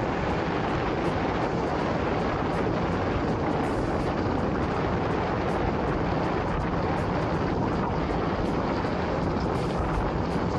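Steady wind rush over the camera microphone while riding an electric scooter at speed, mixed with tyre noise on wet pavement.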